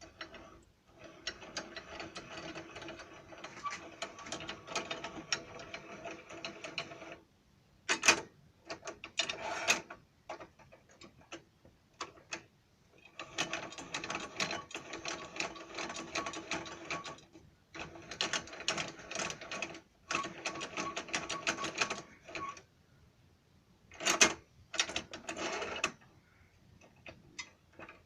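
Homemade metal drill-press vise being worked and adjusted: runs of rapid metallic clicking several seconds long, with sharper clicks and knocks between them.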